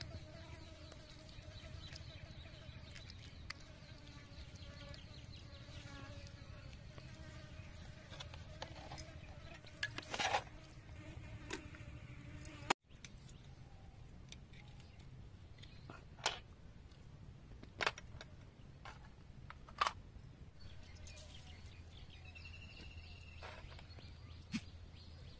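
A fly buzzing close by in a wavering drone for about the first half, broken by a few sharp clicks from shellfish meat being handled over a metal colander. A short high chirp comes near the end.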